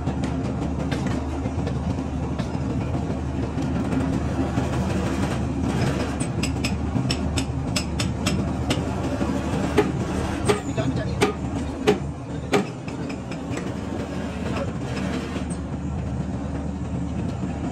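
Steady machinery hum from a power press re-arching a steel leaf-spring leaf, with a run of sharp metal clanks in the middle as the ram presses the leaf against the stone block, the loudest several about a second apart.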